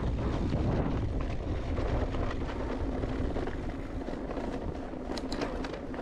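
Wind rushing over the microphone and tyre rumble from an e-mountain bike riding a trail, with a few sharp rattles about five seconds in.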